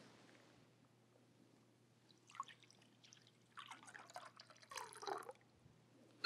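Liquid poured from a glazed ceramic pitcher into a communion chalice. An uneven trickle and splash starts about two seconds in and runs for about three seconds. A brief ringing clink comes right at the end.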